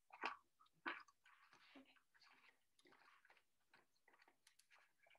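Faint handling noises: soft clicks and crinkling as fingers work wire twist-ties loose from a plastic model horse fixed in its cardboard packaging. Two slightly louder clicks come within the first second.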